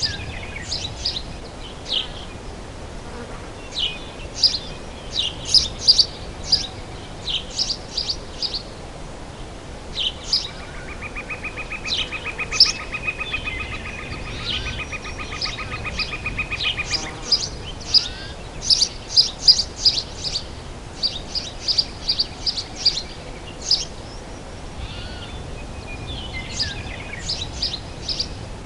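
Forest ambience: songbirds chirping in quick bursts of short high notes throughout, over a low steady background hiss. From about ten seconds in, a fast buzzing trill at one steady pitch runs for some seven seconds and then stops.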